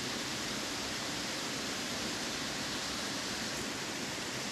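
Steady rushing of river water flowing over rocks, an even noise with no breaks.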